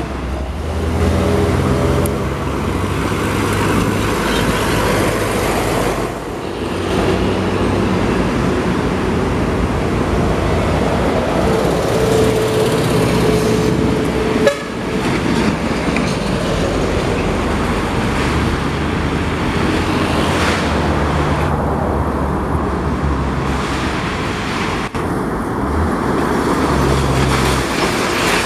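Road traffic passing close by: the diesel engines of heavy trucks, along with cars and motorcycles, running past on the highway.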